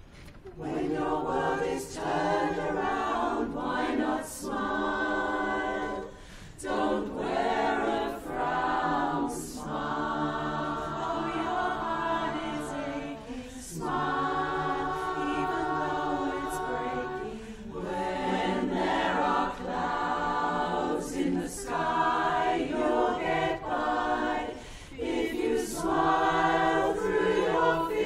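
Women's barbershop chorus singing a cappella in close four-part harmony, starting about half a second in and going on in phrases with short breaks between them.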